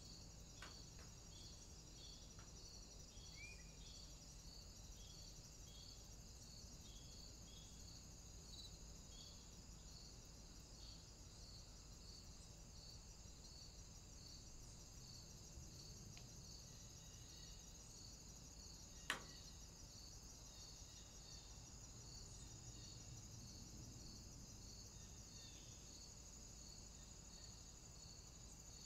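Faint insect chirping: a regular pulse about twice a second over a steady high trill. A single sharp click about 19 seconds in is the loudest sound.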